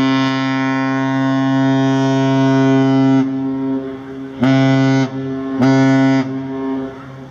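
American Steamship Company freighter's ship whistle blowing one long blast and then two short blasts, a deep steady tone with an echo trailing after each blast. The long-and-two-short pattern is the Great Lakes master's salute.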